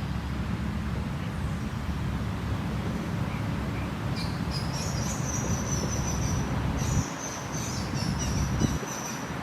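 A songbird singing a run of high chirps and trills, starting about four seconds in, over a steady low rumble and the hiss of flowing creek water.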